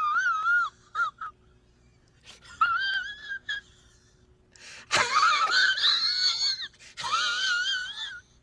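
A run of high, wavering squeaks: about four long squeals with a couple of short chirps between them.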